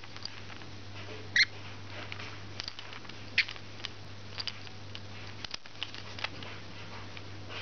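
Young rainbow lorikeet giving short, high squeaks and chirps while it plays, mixed with light clicks and taps, the loudest squeaks about one and a half and three and a half seconds in. A steady low hum runs underneath.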